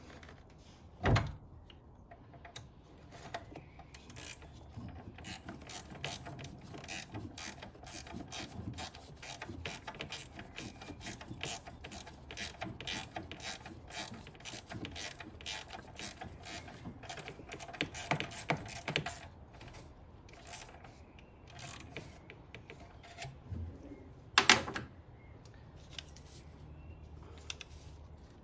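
Socket ratchet clicking in a long run of rapid strokes as the battery hold-down clamp bolt is tightened down on the new battery, with a couple of single knocks, one about a second in and one near the end.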